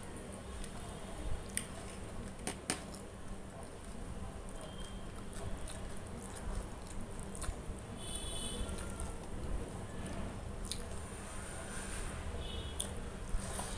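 Eating by hand from a steel plate: fingers squish and gather pea pulao against the metal, with chewing and scattered small sharp clicks.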